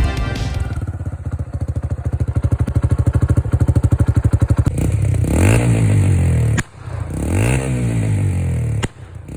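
Quad (ATV) engine running with an even, pulsing beat, then revved twice, each rev rising and falling in pitch and cutting off sharply.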